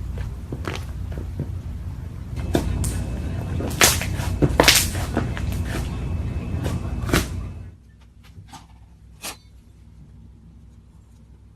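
Slime being squeezed and worked by hand, with sharp wet pops and clicks over a low handling rumble; it stops abruptly about seven and a half seconds in, leaving a few faint clicks.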